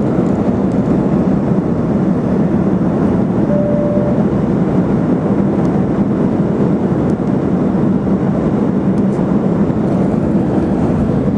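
Airliner cabin noise heard from a window seat: the steady rush of the engines and airflow. A short steady tone sounds briefly about three and a half seconds in.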